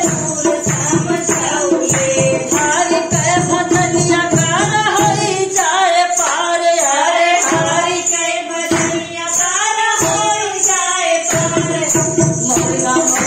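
Awadhi nirgun folk song: singing over a drum and tambourine beat, the drums dropping out twice for a few seconds in the middle.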